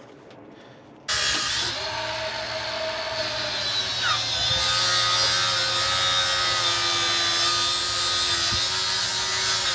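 A power tool's motor starts abruptly about a second in and runs continuously at a steady pitch, with a loud hiss over it and a brief pitch glide partway through.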